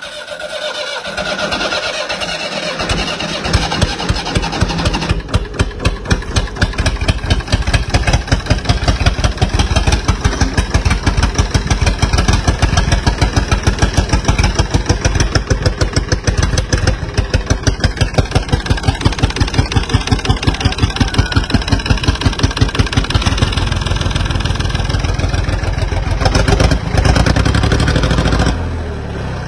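1981 David Brown 885 tractor's three-cylinder diesel engine starting, catching about two seconds in, then running with a steady, even beat. Its low note grows heavier a little before the end.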